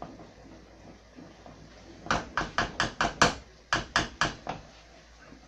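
Wooden spoon knocking against a nonstick frying pan while stirring: about ten sharp knocks in quick succession, roughly four a second, with a brief pause midway.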